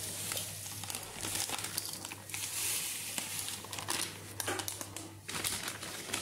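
Plastic packet of pickle masala crinkling and rustling as the spice powder is shaken out of it, an irregular dry crackle.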